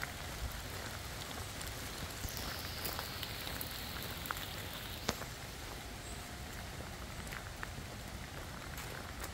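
Steady rain falling on forest leaves and ground, with scattered sharper drips landing close by.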